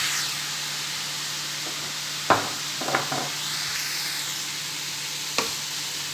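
Minced meat with grated carrot and zucchini sizzling in a frying pan as it is stirred. A few sharp clicks of the utensil against the pan come a little over two seconds in, at three seconds, and near the end.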